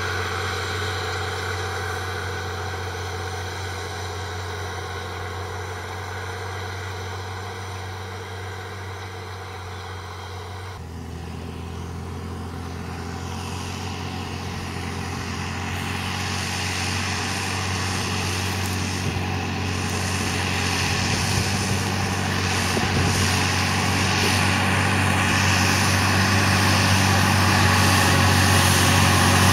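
Valtra T151's 6.6-litre six-cylinder diesel tractor engine running steadily. Its note changes abruptly about ten seconds in, and it grows steadily louder as the tractor draws near.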